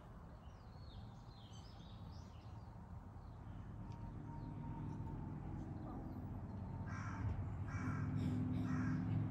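A crow cawing: three harsh calls near the end, over a low hum that slowly grows louder.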